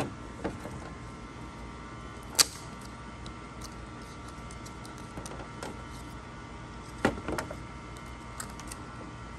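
Plastic clicks and light knocks from handling a taped stack of HP 711 ink cartridges on a printer's plastic lid: a sharp click about two and a half seconds in and a short cluster of knocks around seven seconds, over a steady faint hum.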